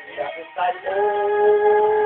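Music with singing. After a few short sung syllables, the voice holds one long steady note from about a second in.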